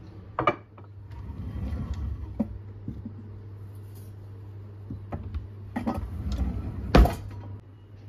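Kitchen drawer of utensils being opened and rummaged through and a tea towel pulled out, with clatter and rustling, then shut with a knock about seven seconds in, the loudest sound. A sharp clink about half a second in as a glass dish is set down on the counter.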